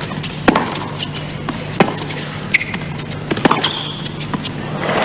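Tennis racquets striking the ball in a baseline rally: sharp single hits about every second, with short high shoe squeaks between them. Crowd applause breaks out right at the end as the point finishes.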